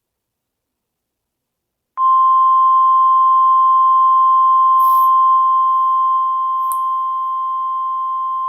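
A few seconds of dead silence, then an emergency alert attention tone comes on abruptly: one steady, loud, high-pitched beep held without a break. It drops a little in level about two-thirds of the way through, and there is a faint click near the end.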